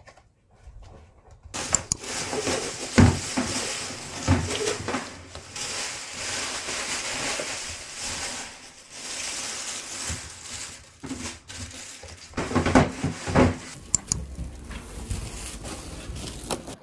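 Plastic bags rustling and crinkling as they are handled, with several sharp knocks and thumps mixed in.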